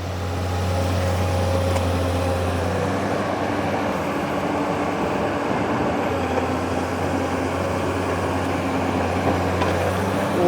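Long-arm excavator's diesel engine running steadily with a low drone, its pitch shifting slightly about three seconds in.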